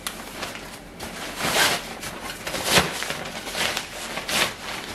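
Nylon carry bag rustling and swishing in a run of strokes as a folded two-seater moon chair is pulled out of it, with a single thump just past halfway.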